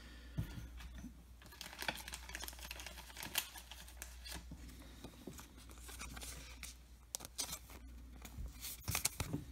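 Faint handling of a cardboard baseball card: soft rustles and scattered light clicks of card and fingers, with a small cluster of taps near the end.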